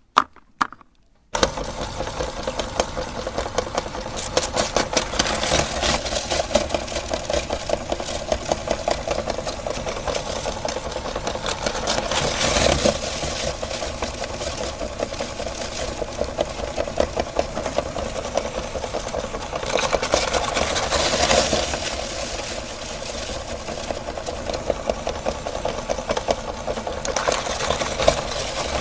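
A couple of sharp clicks, then an electric meat grinder starts a little over a second in and runs steadily, grinding a cookie through its auger.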